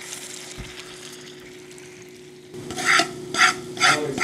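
Sauce-coated boneless fried chicken being stirred in a plastic bowl: after a couple of quieter seconds, wet, sticky mixing strokes come about twice a second.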